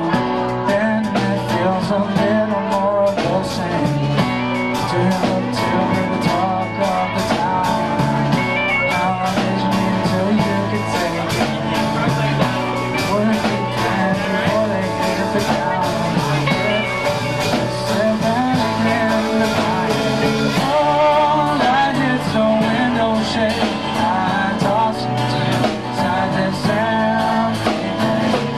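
Live band playing: electric and acoustic guitars and keyboard over drums keeping a steady beat.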